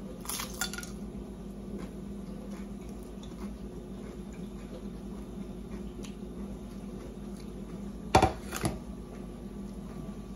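A crisp crunch as a tortilla chip is bitten about half a second in. About eight seconds in come two sharp knocks, the first much the louder, as a ceramic plate is set down on the counter.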